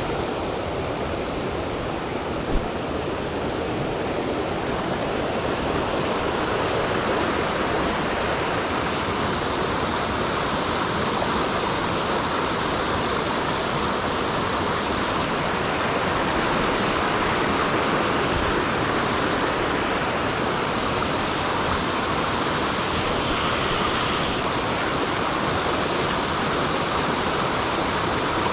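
Mountain stream water rushing steadily, with one brief knock a couple of seconds in.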